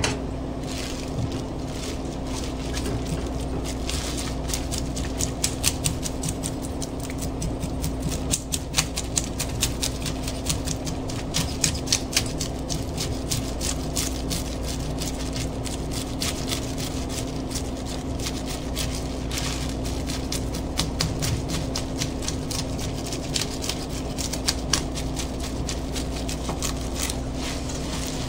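Brass-toothed fish scaler raked fast along a Japanese sea bream's skin under a plastic bag: a rapid run of scratchy rasps as the scales come off. A steady low hum runs underneath.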